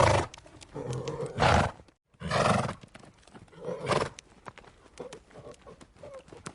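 Horse snorting: a few loud, rough blows of air through the nostrils, near the start, about a second and a half in, about two and a half seconds in and about four seconds in, with softer snuffles between.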